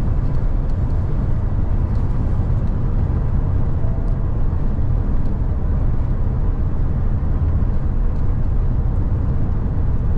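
Steady low rumble of engine and tyre noise inside a vehicle's cab while it drives along a paved road at speed.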